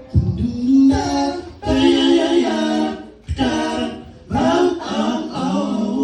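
Unaccompanied soul singing: voices holding long sung notes in harmony, in about four phrases with short breaks between them.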